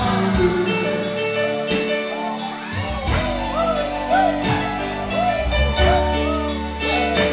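Electronic keyboards playing gospel worship music: held chords over a steady beat, with a melody that slides between notes.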